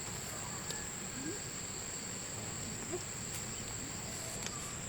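Insects chirring in one steady, unbroken high-pitched tone, with faint short rising calls now and then beneath it.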